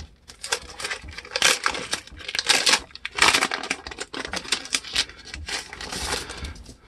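Sheets of paper rustling and crackling as they are handled and leafed through, in a string of uneven swishes, the loudest about one and a half, two and a half and three seconds in.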